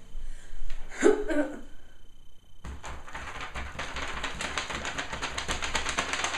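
A sheet of paper shaken rapidly in the hands, a fast, even crackling rattle that starts about two and a half seconds in and keeps going. Before it, about a second in, comes a short vocal sound.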